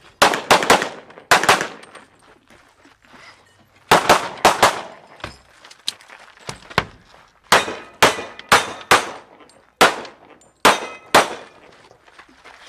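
Handgun shots fired fast on a USPSA stage, mostly in quick pairs, in several short strings with pauses between: about sixteen shots in all.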